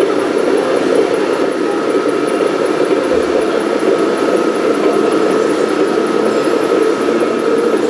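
Radio-controlled model tractor and tipping trailer running while the trailer body tips a load of soil. A thin, steady whine, typical of the model's hydraulic tipping pump, stops near the end over a constant mechanical din.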